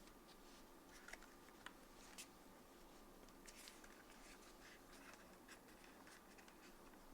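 Faint, irregular keystrokes on a Space80 mechanical keyboard with Keygeek Peachy switches, SW Wild keycaps and a gasket-mounted PC plate. A few separate taps come first, then quicker typing from about halfway in.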